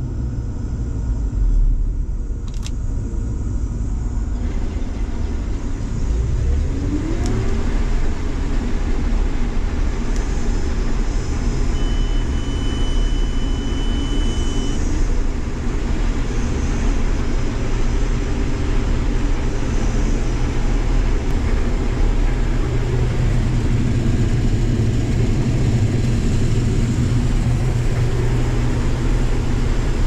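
Combine harvester running through standing corn, heard from inside the cab as a steady engine and threshing hum. A thin, steady high tone sounds for about three seconds, starting about twelve seconds in.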